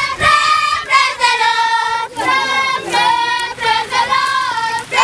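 A group of girls singing together in unison, in short phrases of held notes.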